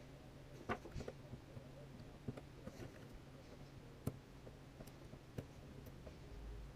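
Faint, scattered small clicks of lockpicking tools working inside a Kwikset Smartkey padlock, over a low steady hum.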